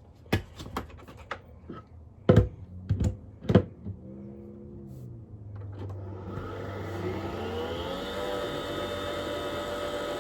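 A few sharp clicks and knocks, then the Nespresso Vertuo Next starts brewing. A motor whir rises in pitch about four seconds in and settles into a steady, fairly loud whine with a hum under it, which the owner takes for the capsule spinning.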